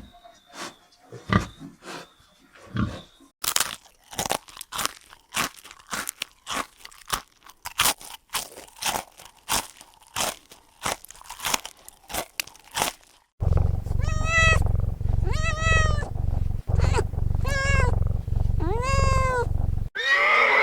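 A run of crisp crunching clicks, about two a second, like an animal chewing something hard. Then about five cat meows, each rising and falling, over a loud low rumble.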